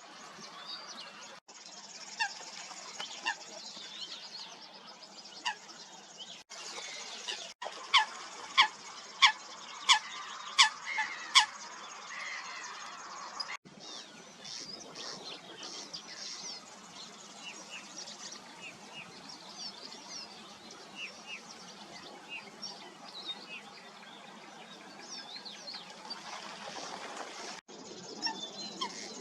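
Waterbirds calling on a lake: scattered short calls over a steady background hiss, with a run of about six loud, sharp calls in quick succession about a third of the way in. The sound drops out briefly a few times where clips are joined.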